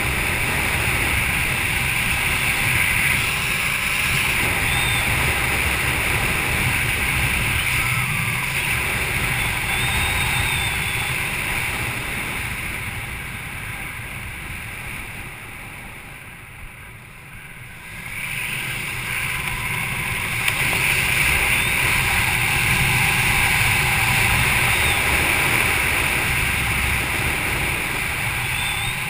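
Wind rushing over a GoPro camera's microphone during parachute canopy flight, a steady rush with a low rumble. It dies down for a few seconds just past the middle, then builds back up.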